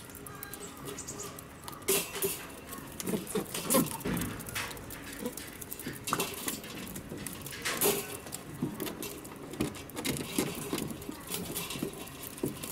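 A crowd of Humboldt penguins shuffling and jostling together on concrete: irregular pattering and sharp clicks that start about two seconds in and keep coming unevenly.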